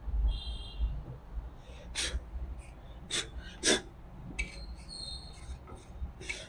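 Handling noise from cleaning the underside of a Jack industrial sewing machine: a cloth wiping the oil pan, with a few sharp clicks and knocks as the small magnet and screw are handled, over a low steady hum.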